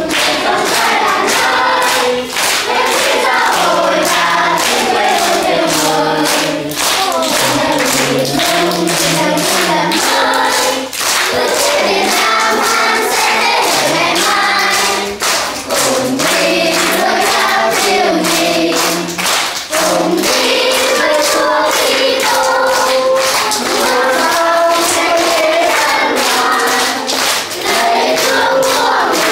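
A group of children singing a song together, clapping their hands in a steady beat.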